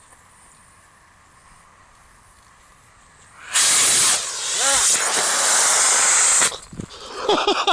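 Model rocket motor on a foam model plane ignites about three and a half seconds in and burns with a loud, steady hiss for about three seconds, then cuts off suddenly: the rocket-powered vertical take-off firing. Voices follow near the end.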